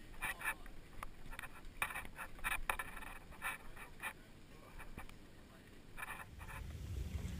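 A series of short, irregular scraping and rubbing sounds close to the microphone. Near the end a low rumble sets in.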